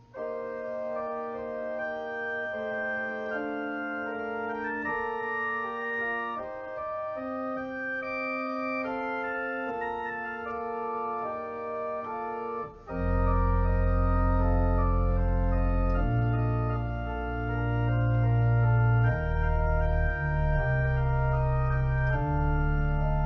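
Organ playing slow, sustained chords. About thirteen seconds in, deep bass notes come in and the music grows louder.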